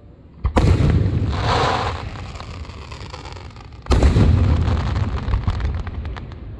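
Two loud aerial firework shell bursts about three and a half seconds apart, each a deep boom with a rumbling tail. The second is followed by a run of crackling pops.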